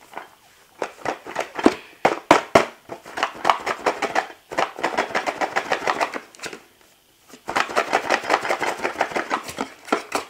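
Stiff plastic packaging being forced open by hand: fast runs of clicking and scraping, several strokes a second, in three bouts with short pauses between them.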